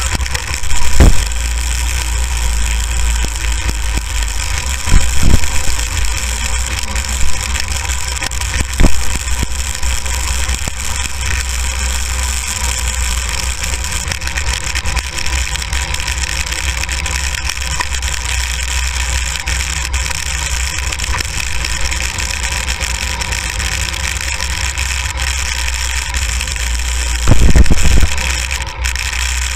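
A go-kart's small engine running steadily as the kart drives over snow, with several brief loud low thuds, the longest near the end.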